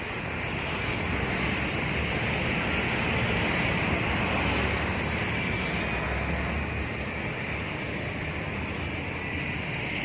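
Steady traffic noise of coach buses moving through a road junction: a low diesel engine rumble with tyre and air hiss. It swells a little over the first few seconds and slowly eases off, with no horn.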